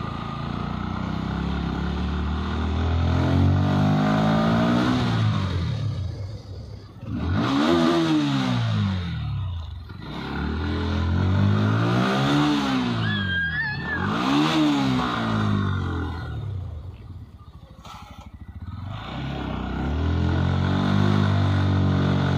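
Motorcycle engine on the move, its pitch climbing and then falling back about five times as the bike speeds up and eases off.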